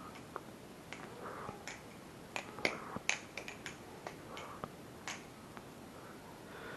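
BBBarfly Firefly balisong (butterfly knife) being flipped and handled, its handles and latch giving a dozen or so sharp, irregular clicks, the loudest about two and a half and three seconds in.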